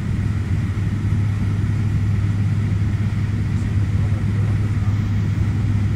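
Cabin noise inside a Fokker 50 on approach: the steady drone of its two Pratt & Whitney Canada PW125B turboprops and six-bladed propellers, a strong low hum with a thin high tone above it.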